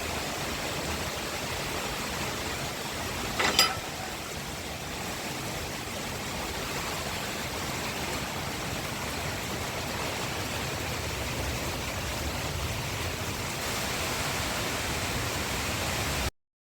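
Cyclone-force wind making a steady rushing noise, with a brief sharp sound about three and a half seconds in. The sound cuts off abruptly just before the end.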